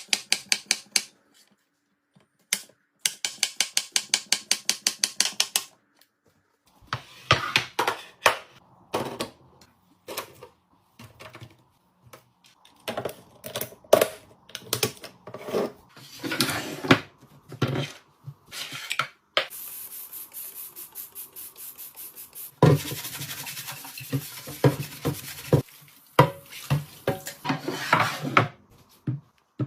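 Restocking a fridge: two runs of rapid, evenly spaced clicking in the first few seconds, then irregular knocks and clatter of containers, lids and packages being handled. Past the middle comes a few seconds of steady hiss, followed by more busy handling noise.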